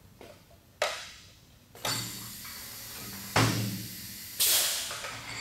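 12-ton pneumatic press brake cycling on a sheet of galvanized steel: short hisses of compressed air as the pedal valve opens, and a thump about three and a half seconds in as the ram comes down. About a second later comes the loudest hiss, a blast of exhaust air that fades away.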